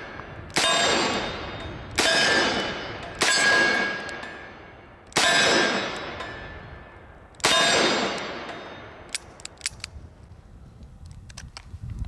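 Five double-action shots from a Smith & Wesson 629 .44 Magnum revolver, one to two seconds apart, each with a long echo and a ringing clang from the steel targets. A few light clicks follow near the end.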